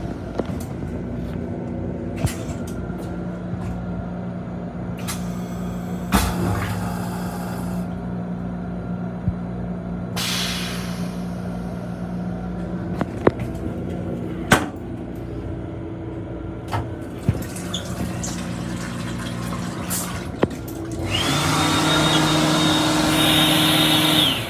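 Steady hum of an M7 electric railcar heard from inside its small restroom, with scattered knocks and rattles. Near the end a louder rushing hiss starts and keeps going for about three seconds.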